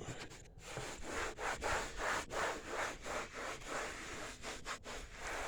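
A cloth applicator rubbing a dressing back and forth over a hard plastic toolbox lid, in even strokes at about three a second.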